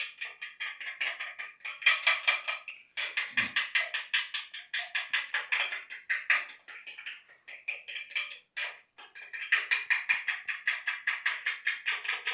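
Egg mixture being beaten in a bowl with a utensil: fast, regular clicking of the utensil against the bowl, about five strokes a second, with brief pauses about three and nine seconds in.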